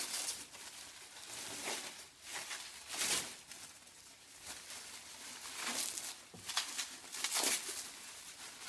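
Rustling and crinkling of packaging being handled as machined parts are unwrapped, in several short irregular bursts.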